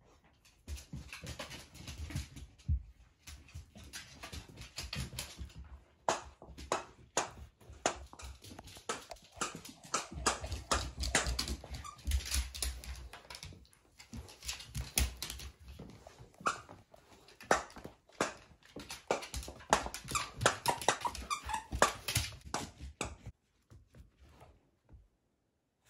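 Beagle playing with a toy on a hardwood floor: irregular clicks, taps and scuffles of claws and toy on the wood, with occasional squeaks. The sounds stop about two seconds before the end.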